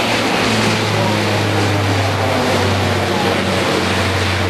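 Twin-engine turboprop transport aircraft flying a low display pass overhead: a loud, steady, deep propeller drone over the rushing noise of the engines.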